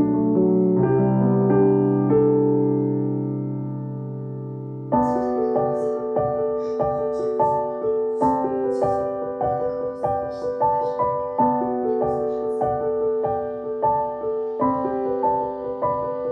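Background music: soft held piano chords, then about five seconds in a new section of shorter repeated piano notes over a light, ticking beat.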